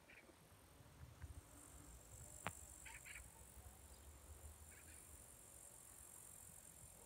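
Near silence: faint summer-garden ambience with a steady high-pitched insect hiss, a few short faint chirps and a single soft click.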